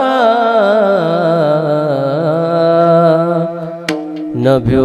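A male kirtan singer holds a long, wavering note in Marathi Varkari devotional singing, ornamenting the end of a line over a steady low drone. Near the end there is a sharp click, and the next sung phrase begins.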